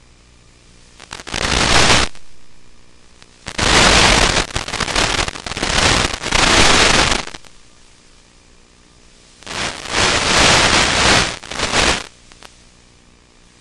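Bursts of loud static hiss from an analog FPV video downlink as its signal breaks up: a short burst near the start, a longer stretch of several seconds in the middle, and another couple of seconds near the end. Between the bursts there is a faint steady hiss and hum.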